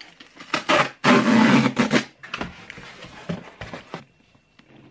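A cardboard book mailer being torn open by hand, with one long loud rip lasting about a second. Rustling and light knocks of cardboard follow as the paperback is pulled out.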